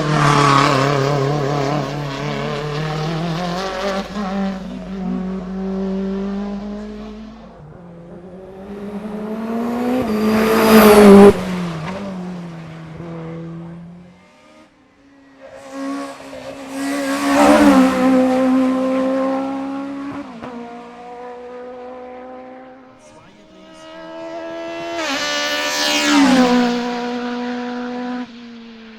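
Several racing cars go hard past the roadside one after another, about four in all. Each engine revs high and shifts up through the gears, its pitch stepping, then drops away as the car passes.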